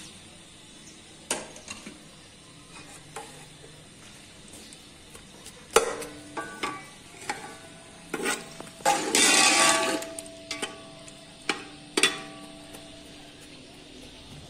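A metal spoon stirring sliced onions in ghee in a metal cooking pot, with scattered sharp knocks against the pot, some ringing briefly. About nine seconds in there is a second of dense scraping, the loudest part.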